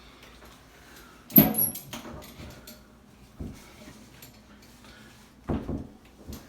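A few separate knocks and clunks from a step stool and door being handled. The loudest comes about a second and a half in with a brief metallic ring, and lighter knocks follow around three and a half and five and a half seconds in.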